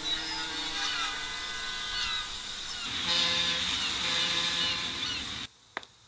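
Outdoor city ambience: a steady hiss and low hum, with many short, high, falling chirps scattered through it. It cuts off abruptly near the end, followed by a single sharp tap.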